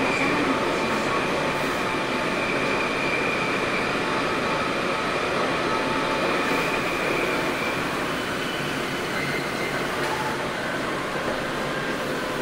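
Sendai subway 1000N series train running, heard from inside the car: a steady rumble of wheels on rail with faint whining tones over it. The sound eases slightly in the second half.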